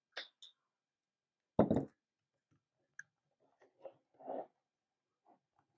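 Scattered light clicks and knocks of a plastic dashboard trim panel and screws being handled, with one louder knock about a second and a half in.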